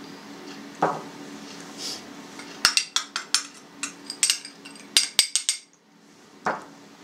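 Metal spoon stirring in a glass of water, clinking quickly and repeatedly against the glass for about three seconds to dissolve salt. A soft knock comes about a second in and another near the end.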